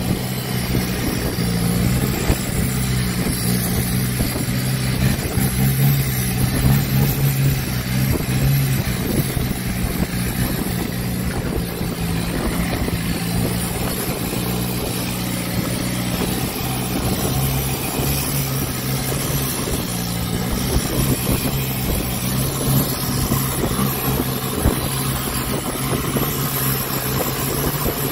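Longtail boat's engine running steadily under way, a constant low drone, with water rushing along the hull and wake.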